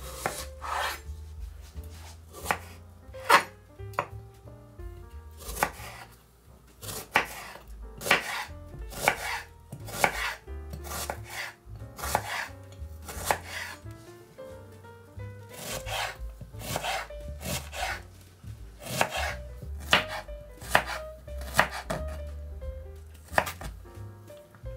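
Chef's knife slicing and chopping a raw onion on a bamboo cutting board: sharp, irregular knocks of the blade through the onion onto the wood, one or two a second.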